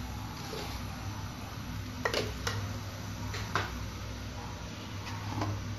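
A few light clicks and taps from salt being added to a cooking pot of raw dal and prawns, over a steady low hum.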